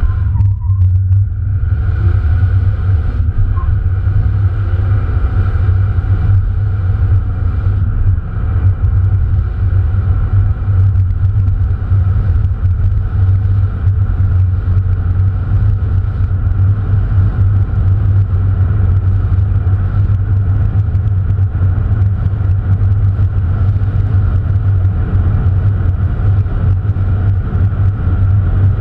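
Opel Astra Bertone Turbo's turbocharged four-cylinder engine and road noise heard from inside the cabin while driving: a loud, constant low drone with a faint steady higher tone above it. It builds over the first couple of seconds, then holds steady.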